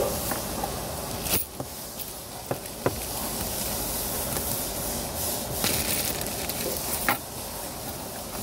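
Steady hissing noise, with a few sharp clicks and knocks at irregular moments.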